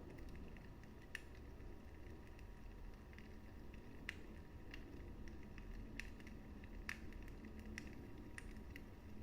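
Wood fire burning in a fireplace: a low, steady rumble of flames with scattered sharp crackles and pops, the strongest about four and seven seconds in.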